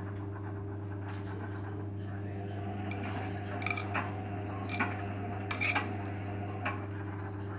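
Beko WMA 1510 washing machine running its main wash: a steady motor hum, with a scatter of about seven sharp metallic clinks between about three and seven seconds in.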